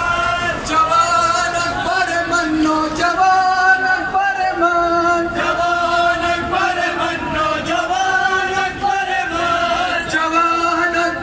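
A man's voice chanting a mournful noha in long, held, gliding notes, carried over horn loudspeakers above the hum of a crowd.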